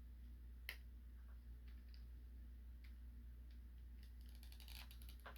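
Faint clicks and ticks of hard plastic toy parts being pressed and worked together on a tight peg joint, with one sharper click less than a second in and a few light clicks near the end, over a low steady hum.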